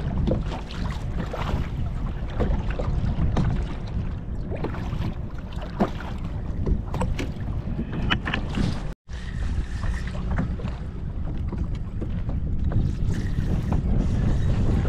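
Wind buffeting the microphone over choppy water lapping at a kayak, with scattered small clicks and knocks. The sound cuts out for an instant about nine seconds in.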